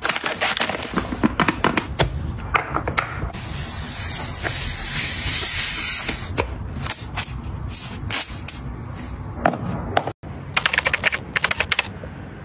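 A clear plastic cup and containers set down on a countertop with light taps and clacks, then fine white granules poured from a plastic bag into a glass jar with a steady hiss. Near the end, a quick run of rapid clicks.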